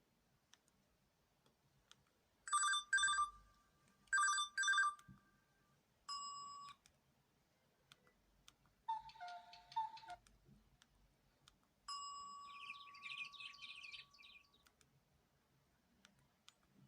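LG-S310 keypad mobile phone playing short ringtone previews through its small speaker, each cut off after a moment, with faint clicks between them. First comes a trilling telephone-style ring, heard twice, then a short beep, a brief tune, and a longer chirping tune.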